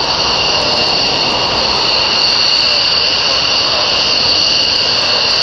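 F-15 Eagle's twin Pratt & Whitney F100 turbofans running steadily on the ground: a loud, even rush with a high whine in two steady pitches.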